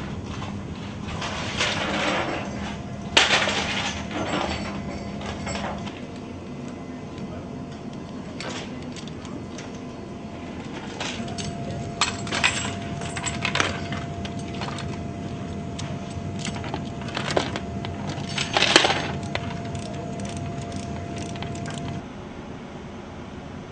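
Heavy steel tie-down chains clanking and rattling against metal as they are handled, in a series of sharp knocks, the loudest about 3 s and 19 s in, over a steady hum.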